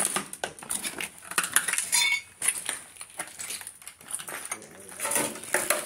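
Scattered clicks, clinks and scuffs of footsteps and handling among debris on a littered floor, with a brief squeak about two seconds in.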